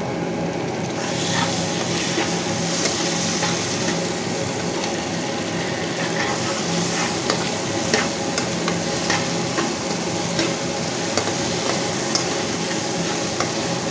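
Chopped onions and diced tomatoes sizzling in oil in a non-stick kadai while a metal spoon stirs them, with scattered clicks and scrapes of the spoon against the pan. The sizzle swells about a second in and then holds steady.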